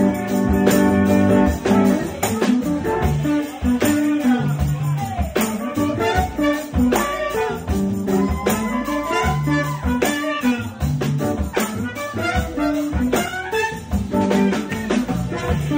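Live jazz combo playing: a trumpet takes the melody over archtop electric guitar, upright bass and drum kit keeping a steady beat.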